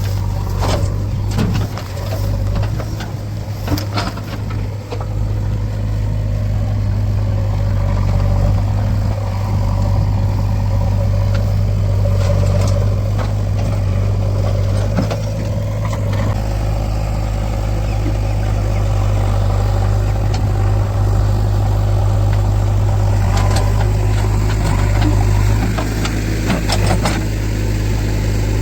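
Heavy diesel engine running steadily with a low, even drone. Scattered knocks and clanks sound over it in the first few seconds and again near the end.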